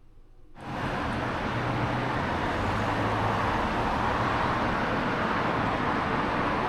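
Steady road and engine noise of a moving car, with a low hum underneath. It starts abruptly about half a second in.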